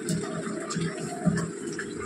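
Thick fish korma gravy simmering in a kadai, bubbling with small irregular pops and ticks over a steady low rush, as the gravy reduces.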